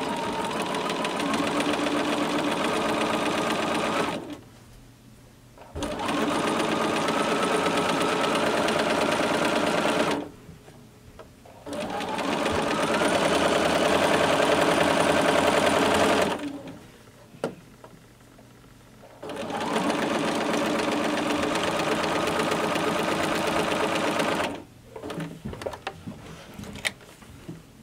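Electric sewing machine stitching quarter-inch seams on quilt pieces, in four runs of about four seconds each with short pauses between them. The motor speeds up with a rising pitch at the start of the runs, then stops sharply at the end of each seam.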